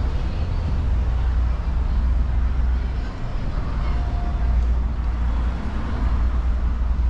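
City street traffic: a steady low rumble of passing cars and buses.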